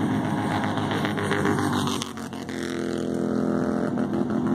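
Engines of Bandolero race cars running on the track, a steady engine note standing out clearly in the second half. Wind is buffeting the microphone.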